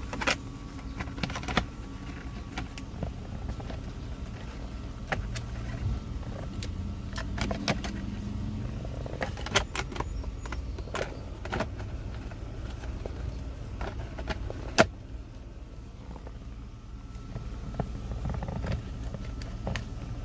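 Plastic upper steering column cover being fitted and pressed into place: irregular clicks, taps and light rattles of plastic against the column, one sharp click about fifteen seconds in, over a steady low hum.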